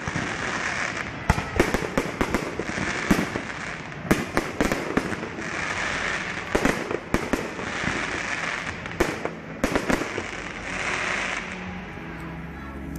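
Aerial fireworks going off: a rapid series of sharp bangs from bursting shells, with swells of crackling every couple of seconds. The bangs die down near the end.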